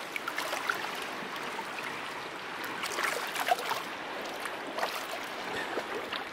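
River water flowing in a steady rush, with scattered small splashes and drips.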